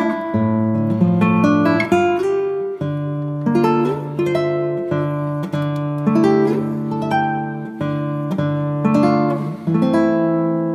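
Background music: an acoustic guitar plucking a melody over held low notes that change every couple of seconds.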